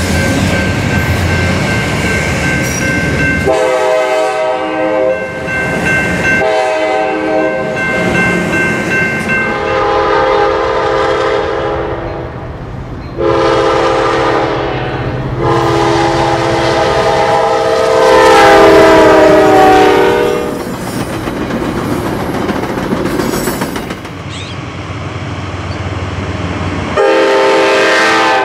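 Diesel passenger locomotives' air horns sounding a series of chord blasts, some short and one long, over the rumble of passing trains and wheels on rail. A bell rings steadily through the first nine or ten seconds.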